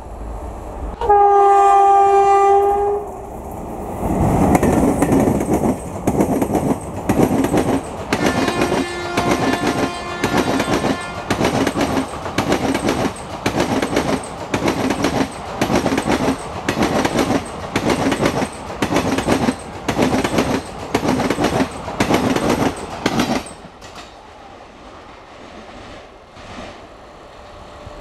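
Electric locomotive of an Indian Railways express train sounding its horn once, for about two seconds, as it approaches. Its train of passenger coaches then passes close at speed, with a steady clickety-clack of wheels over rail joints at about one and a half beats a second and a fainter horn partway through. The clatter stops about three-quarters of the way in, when the train has gone by.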